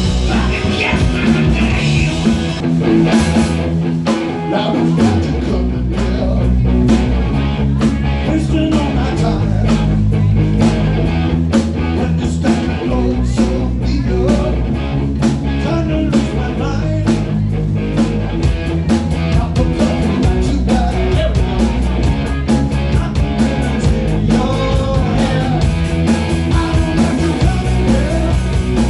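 Live rock-and-blues band playing: electric guitar, bass guitar and drum kit with a strong steady beat, and a male singer singing.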